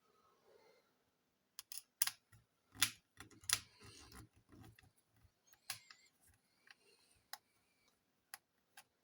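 Sharp plastic clicks and light knocks of handling inside an open laptop as its battery is unplugged and lifted out, a dozen or so separate clicks with some rubbing between them.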